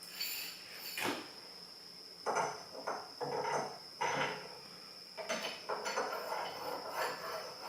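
Small metal hardware clinking and clattering as washers, a nut and a roller are handled and fitted onto a wheel axle shaft, with a sharper knock about a second in and bursts of rattling after that.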